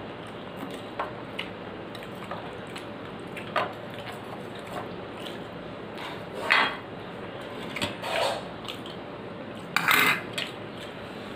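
Scattered scrapes and clinks of fingers and a spoon on a steel plate as the last of a rice meal is gathered up, a few louder, the loudest near the end.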